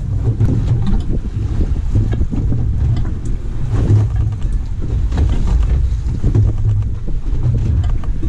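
Wind buffeting the microphone over the steady low rumble of a boat under way at slow trolling speed on choppy open water.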